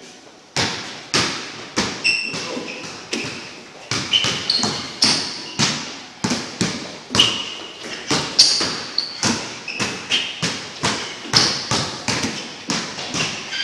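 A basketball dribbled hard on a gym floor, bouncing about twice a second at an uneven pace, with short high squeaks from sneakers on the floor.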